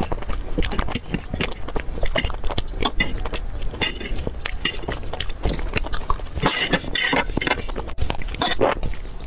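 Close-miked eating sounds: utensils clinking against dishes amid chewing, a dense run of short clicks and smacks. A louder, noisier stretch comes a little after six seconds in.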